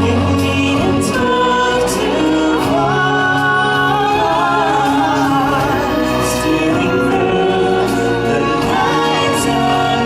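Live stage-show music: a choir of voices singing held notes over instrumental accompaniment with a steady percussion beat.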